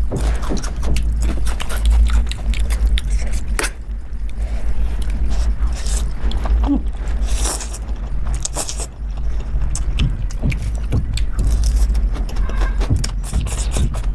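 Close-miked eating sounds: chewing and mouth noises with scattered small clicks and crackles over a steady low rumble.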